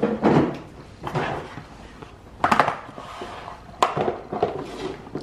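Plastic lunchbox containers knocking and clattering on a kitchen countertop as their clip-on lids are handled and pressed shut: a few separate sharp knocks and rattles.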